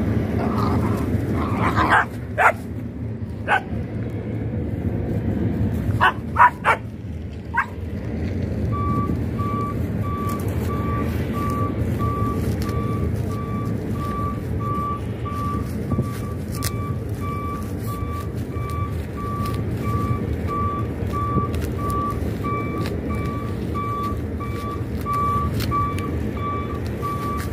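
Puppies yipping and whining as they play and tug at a woven plastic sack, with a few sharp knocks in the first several seconds. Then a vehicle's reversing alarm beeps steadily, about two beeps a second, over a low engine rumble.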